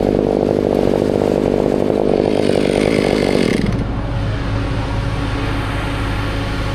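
Chainsaw running and cutting, which stops about three and a half seconds in. A steadier engine hum is left running underneath.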